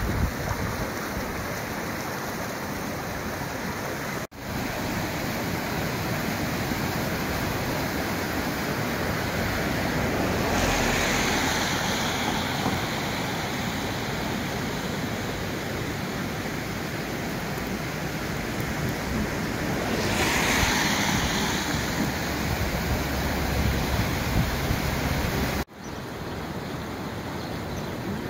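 Steady rush of water with wind on the microphone: a small river running high and muddy in flood after heavy rain, then waves washing onto a shingle beach with two louder surges about ten seconds apart. The sound cuts out abruptly twice, about four seconds in and near the end.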